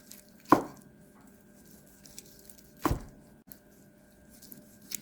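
Two sharp knife strikes on a cutting board, about two seconds apart, with a few faint clicks between them.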